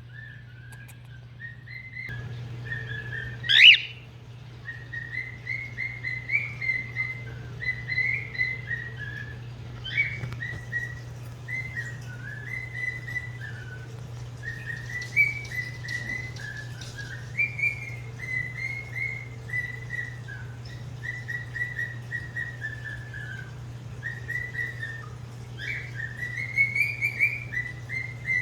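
Male cockatiel whistling a song of short warbling phrases, one after another, still learning and practising it. About four seconds in he gives one loud call that sweeps sharply upward.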